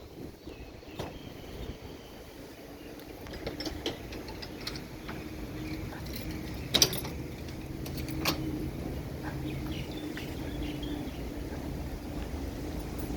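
An engine humming steadily at a constant pitch, with scattered sharp clicks and knocks; the loudest knock comes about seven seconds in.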